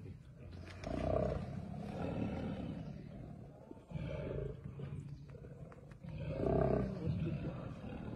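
Two male Bengal tigers growling and roaring at each other in a territorial face-off, in repeated rough calls a second or two apart.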